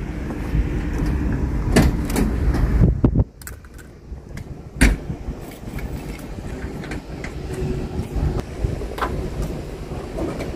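Wind buffeting the microphone for about the first three seconds, then a few sharp metal knocks and clicks as a worker climbs the steel track and grab handles of an excavator to its cab door.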